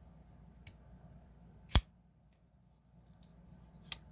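Folding pocketknife being handled, its blade snapping open and shut with sharp metallic clicks: a faint click, then a loud one a little under two seconds in, and another near the end.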